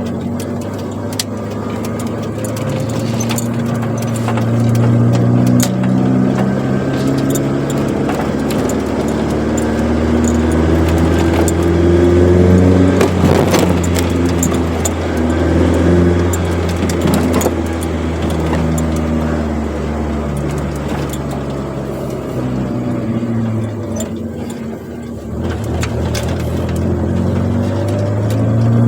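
Chevrolet Corsa's four-cylinder engine with a sport exhaust, driving along. Its pitch climbs under acceleration and drops back at each gear change, eases off about three-quarters through, and pulls up again near the end.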